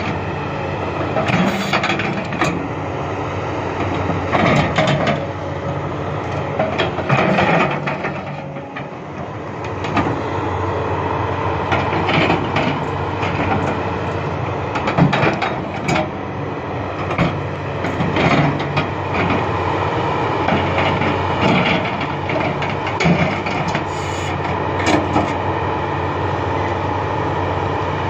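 XCMG XE370CA crawler excavator at work: its diesel engine runs steadily under load, with repeated clanks and knocks as the bucket digs into the sand and soil pile.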